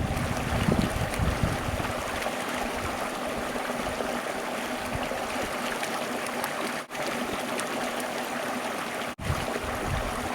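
Stream water flowing in a steady, even rush, broken by two brief dropouts, one about seven seconds in and one about nine seconds in.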